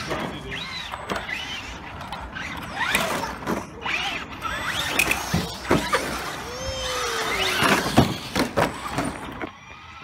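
Electric RC short-course trucks running on grass: a motor whine rising and falling in pitch, broken by many sharp knocks and clatters of the chassis hitting the ground and obstacles.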